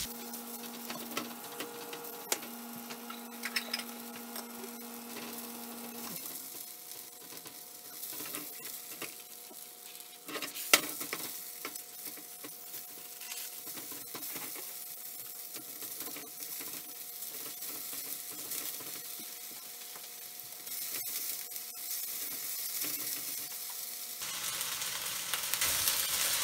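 Marinated beef slices sizzling in a hot oiled nonstick wok as they are stirred with a spatula, with light scrapes and taps of the spatula against the pan and one sharper tap about eleven seconds in.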